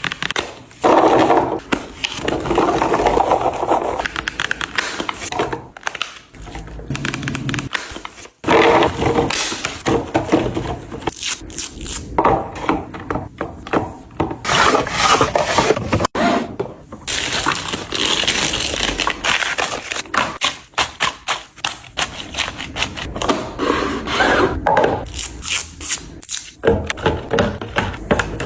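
Items being handled and put into a fridge: an irregular run of taps, knocks and scrapes from containers being set down, with stretches of crinkling, rustling packaging.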